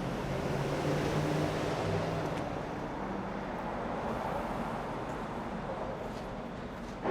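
City road traffic: a steady wash of passing tyres and engines, with one vehicle's low engine hum standing out for the first two seconds.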